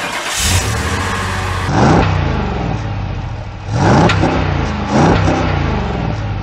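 Off-road 4x4's engine revving under load, its pitch surging up three times, about two, four and five seconds in, and falling back after each.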